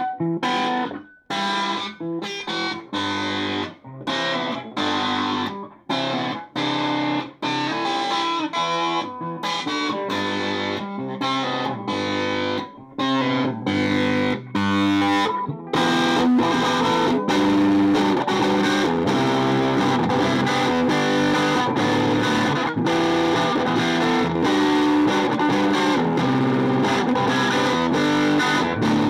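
Electric guitar played through a tube guitar amp with some overdrive. For about the first half it plays short, choppy chords with brief gaps between them, then it turns to continuous, fuller playing.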